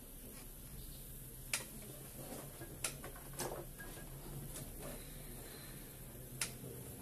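A handful of short, sharp clicks at irregular intervals, the clearest about one and a half, three and six and a half seconds in, over a steady low hum.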